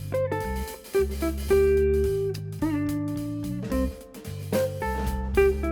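Background music with plucked guitar notes over a bass line.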